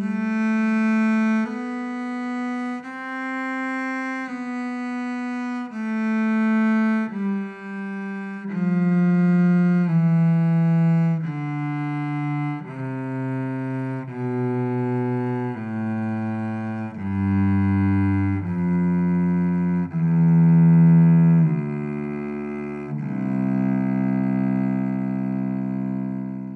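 Solo cello playing a two-octave C major scale with the bow, one note per stroke, stepping down the scale note by note. It ends on a long-held low C.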